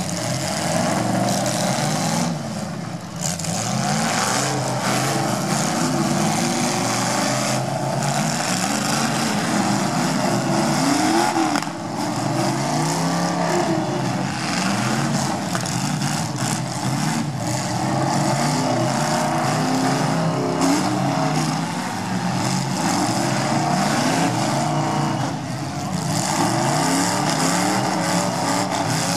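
Engines of several demolition derby cars revving and running together, their pitch rising and falling over and over as they push through the mud.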